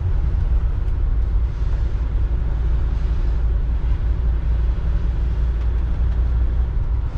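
Steady low rumble of a motorhome's engine and road noise, heard inside the cab while driving.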